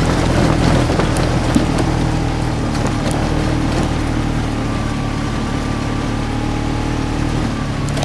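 Polaris RZR side-by-side's engine running steadily under way, with a rushing noise of wind and terrain and a few light knocks.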